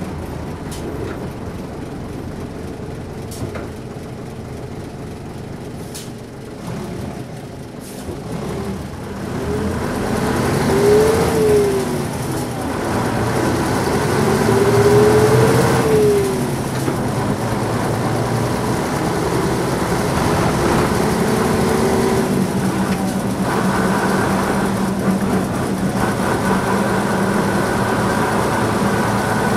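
Nissan Diesel P-U33L route bus's diesel engine heard from on board: running low with a few sharp clicks at first, then from about nine seconds in rising in pitch twice, dropping between as it shifts up, and settling into a steady cruise for the last few seconds.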